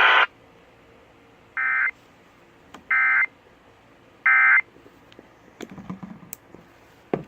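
Emergency Alert System End of Message code: three short bursts of two-tone digital data tones, evenly spaced about a second and a half apart, signalling the close of the alert. Faint clicks follow, with a sharp click near the end.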